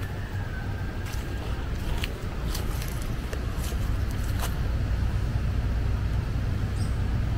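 Steady low outdoor rumble, with a few faint, irregular crunches of footsteps on a gravel path.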